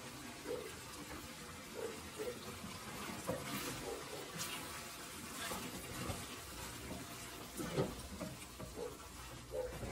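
Water running from a kitchen tap into a sink, with a few light knocks.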